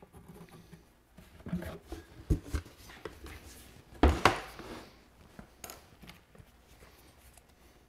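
Tools and wooden parts being handled and set down on a workbench: a string of knocks and clatters, the loudest two close together about four seconds in.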